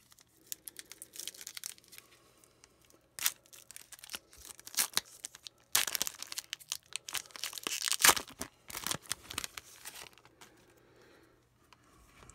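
Hockey card pack wrapper being torn open and crinkled by hand, in a series of short rips and crackles, loudest about eight seconds in.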